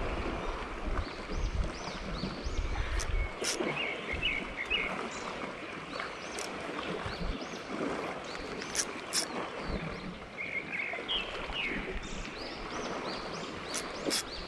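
Boat engine running low, then cutting out about three seconds in, leaving water lapping at the hull with scattered sharp clicks and a few short chirps.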